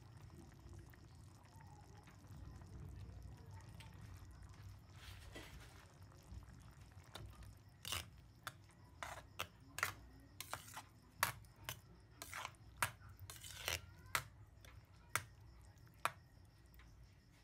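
A ladle stirring a pot of simmering afritada stew, knocking and clinking against the pot in a string of sharp, irregular taps through the second half, over a faint low rumble.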